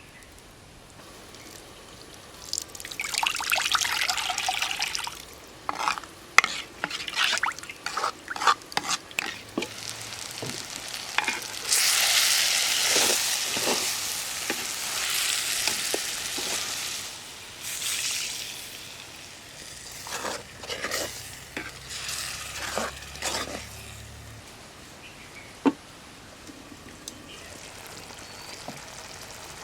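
Chicken curry cooking in a pan: sizzling swells up twice, the second time louder and longer, while a spoon stirs and knocks sharply against the pan.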